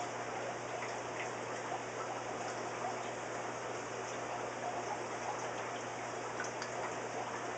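Steady trickle of running water with a low hum beneath it and a few faint clicks.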